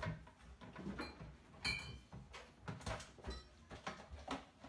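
Light knocks and clicks of things being handled on a counter, with one brief ringing clink a little under two seconds in.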